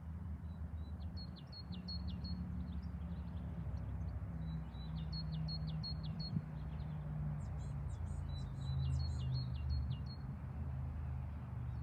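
Small birds singing in repeated short, quick chirping phrases, over a low steady hum.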